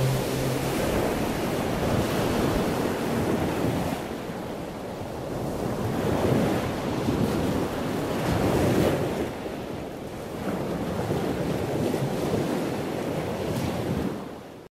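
Ocean surf, waves breaking and washing back, swelling and easing every few seconds, then fading out at the very end.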